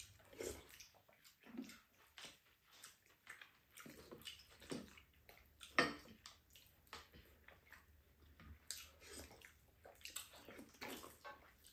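Two people eating soup and rice with spoons: quiet, irregular slurps of broth and chewing, the loudest slurp about six seconds in.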